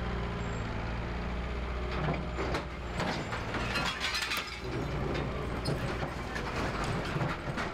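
An engine idling steadily, fading out about two and a half seconds in. Then a run of clattering knocks and crashes, as of wood, metal and glass being broken, densest about three to four and a half seconds in.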